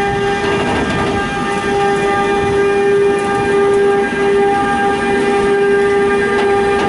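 Bombardier Traxx electric locomotive moving off slowly with a train of tank wagons, its traction equipment giving a loud, steady whine of several held tones over a low rumble.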